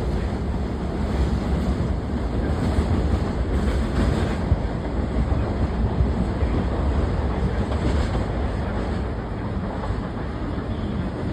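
Train running along the tracks: a steady rumble of wheels on rail, with wind on the microphone.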